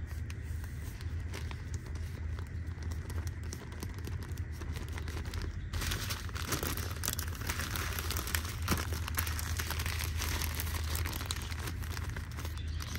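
Plastic Ziploc freezer bag crinkling as it is handled and squeezed, denser and louder from about six seconds in, over a low steady hum.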